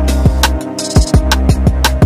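Background music with a steady drum beat: a deep held bass, drum hits that drop sharply in pitch, and crisp cymbal ticks.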